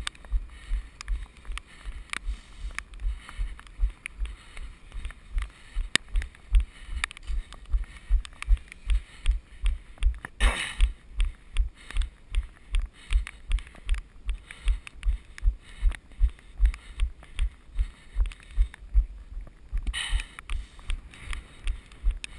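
A runner's footfalls picked up through a body-worn action camera: a steady rhythm of dull low thumps, nearly three a second. Two short rushes of noise break in, about ten seconds in and near the end.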